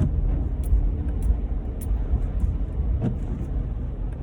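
Car interior noise while driving in the rain, picked up by the Bose QuietComfort 35 headphones' built-in microphone: a steady low rumble of engine and road, with scattered light ticks of raindrops on the roof and windshield.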